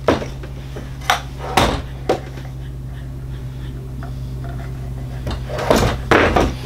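Knocks and clunks of a cordless cut-off saw being handled on a workbench: lifted, tipped up and set back down. There are a few separate knocks in the first two seconds and a cluster near the end, over a steady low hum.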